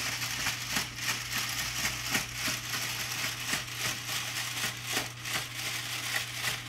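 Lego Technic tracked tank driving off, its single large Power Functions motor turning the plastic tracks and gear train: a dense, continuous clatter of rapid clicks and rattles.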